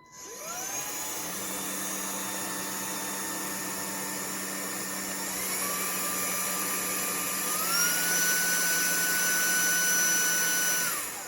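JS T1 Swift cordless stick vacuum's motor starting up with a rising whine, then stepping up in speed and loudness twice as it is switched through its low, medium and turbo settings. Near the end it is switched off and winds down with a falling whine.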